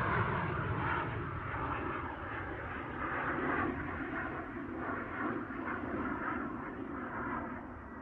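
Jet aircraft noise receding: a steady rushing sound that fades slowly and grows duller as its high end drops away, with a slight wavering in the middle.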